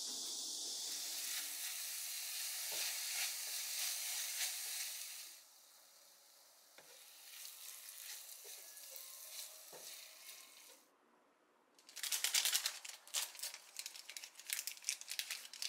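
A steady hiss that drops abruptly about five seconds in to a quieter hiss with a few soft knocks. After a brief near-silent gap, a dense run of sharp crackles and clicks begins about twelve seconds in.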